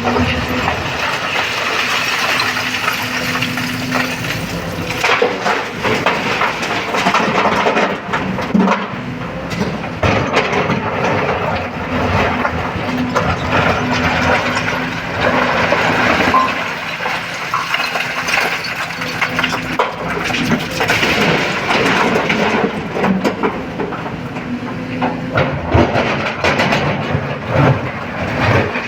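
Heavy diesel excavator engine running steadily while stones clatter and knock irregularly, as loaded rock is handled and dumped into a truck bed.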